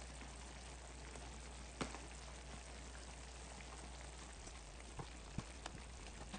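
Tomato sauce bubbling softly at a simmer in an enameled cast-iron pan, with a few faint taps and plops as tomato slices are laid into it.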